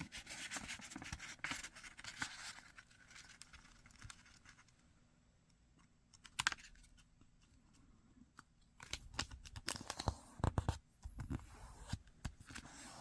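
A sheet of origami paper being flipped and folded in half into a triangle. Soft scraping and rustling of the paper for the first few seconds, a quiet stretch with a single sharp scrape midway, then a run of sharp scratchy strokes in the last few seconds as the fold is pressed flat.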